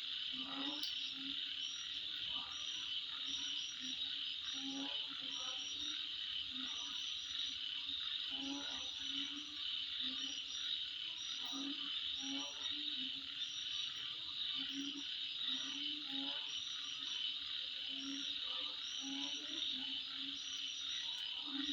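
Night chorus of insects: a steady high-pitched buzz, with short chirps repeating about once or twice a second and lower pulsed calls recurring throughout.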